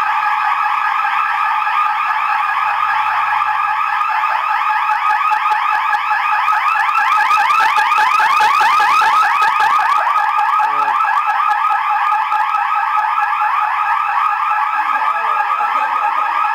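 Fire alarm sounding continuously with a rapid, shrill pulsing, a little louder around the middle.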